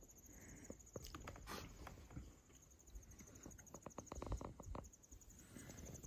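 Near silence, with a faint, high, evenly pulsing trill and scattered faint clicks, including a short run of rapid ticks a bit past halfway.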